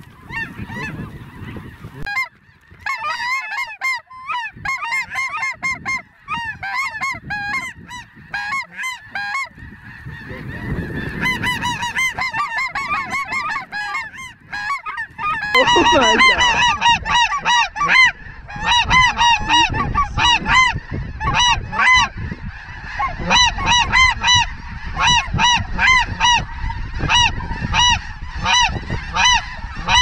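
A large flock of snow geese honking: many short, high calls overlapping in a dense chorus that gets louder about halfway through.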